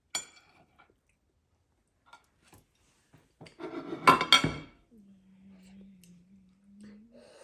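Dishes and cutlery clinking and clattering at a table, with a sharp click at the start and two loud clinks about four seconds in, followed by a low steady hum for about two seconds.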